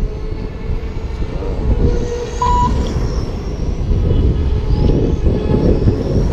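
Electric 1/10-scale Vintage Trans Am RC race cars whining around the track, their motor pitch gliding up and down, over a steady low rumble. A short electronic beep about two and a half seconds in.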